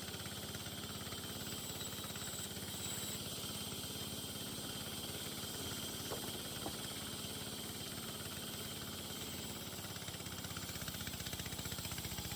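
An engine running steadily, with a couple of faint clicks about six seconds in.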